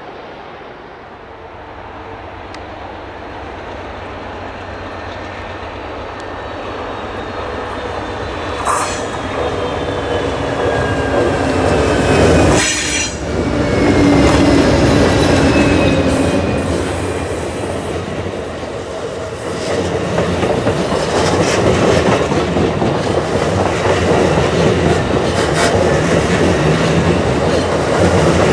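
Amtrak passenger train led by a GE P42DC diesel locomotive approaching and passing close by, growing steadily louder. It is loudest as the locomotive goes by about halfway through. Double-deck Superliner cars then roll past with steady wheel-on-rail clatter and some thin wheel squeal on the curve.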